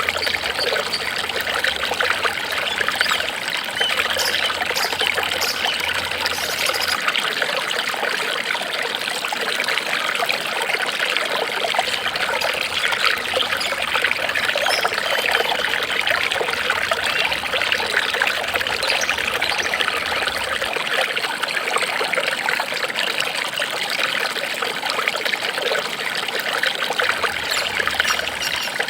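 Water trickling and babbling steadily, as in a small stream.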